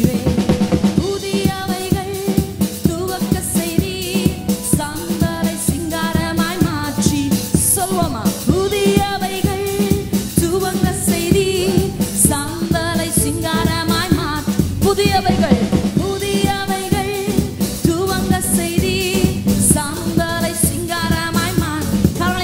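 Tamil Christian worship song: voices singing over a band with a steady drum beat.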